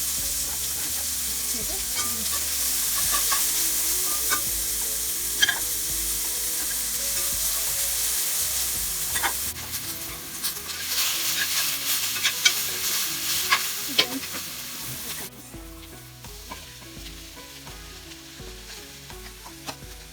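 Garlic, shallot and ginger sizzling in hot oil in a pan while being stirred, the utensil clicking and scraping against the pan. The sizzle drops off sharply about fifteen seconds in, and lighter stirring clicks carry on.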